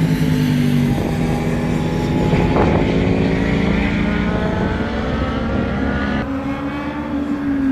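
Car engine under load on a race circuit, its pitch rising slowly as it accelerates, then easing off about six seconds in, with the pitch falling near the end.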